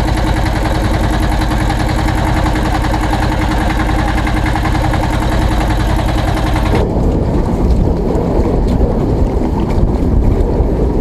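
Boat engine running steadily as the boat moves along. About seven seconds in the sound changes abruptly to wind blowing on the microphone over a low rumble.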